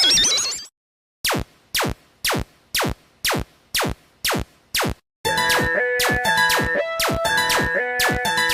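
Electronic cartoon music: a rising electronic sweep cuts off, then comes a run of about nine sharp, even clicks a little over two a second. About five seconds in, a synth tune with a drum-machine beat starts.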